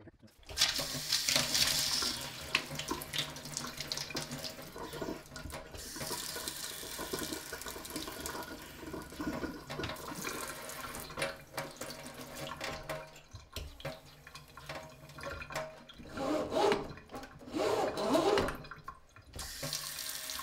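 Kitchen faucet running a thin stream into a stainless steel sink basin, the flow shifting a few times near the end. The faucet's flow is weak, which the owner puts down to a head that might be a little clogged with lime.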